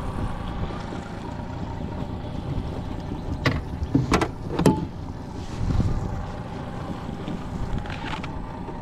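A boat's outboard motor running steadily. About halfway through come three sharp knocks, in quick succession, as gear and a pole are handled against the boat's aluminium hull.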